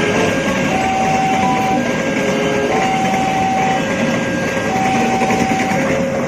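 A train running past a railway level crossing, with a dense, steady rumble and rattle. Over it, the crossing's warning alarm sounds two alternating held tones, a higher then a lower one, repeating about every two seconds.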